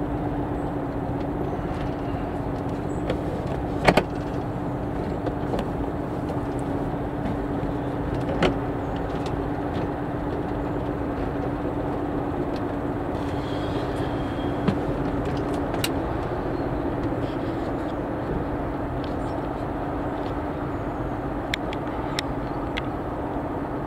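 A narrowboat's engine idling steadily with a low hum, which fades about two-thirds of the way through, and a few sharp clicks along the way.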